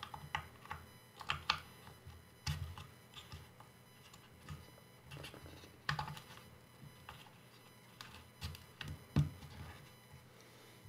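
Irregular light clicks and taps of plastic parts being handled as a replacement rear arm is worked into the frame of a Hubsan Zino 2 Plus drone.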